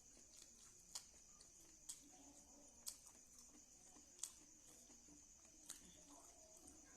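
Faint eating sounds: a person chewing kadhi pakora and rice, with sharp mouth clicks about once a second, over a steady thin high-pitched whine.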